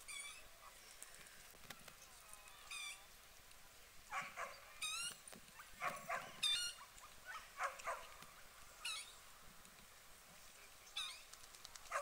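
Birds calling at the waterside: repeated short, high chirps throughout, and a cluster of louder, short calls that drop in pitch between about four and eight seconds in.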